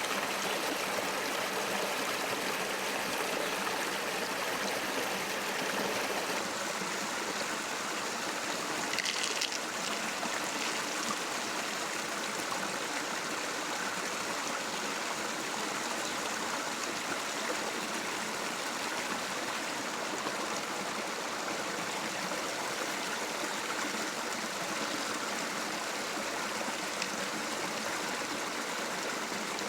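River water flowing steadily, with one brief sharp sound about nine seconds in.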